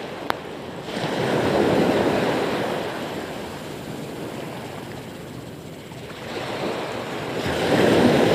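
Ocean surf washing onto a beach, swelling louder about a second in and again near the end as waves come in. A single sharp click sounds just after the start.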